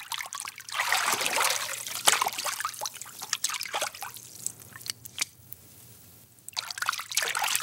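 Library sound effect of light water movement: gentle sloshing with small splashes and drips. It drops away briefly a little before six seconds in, then starts again.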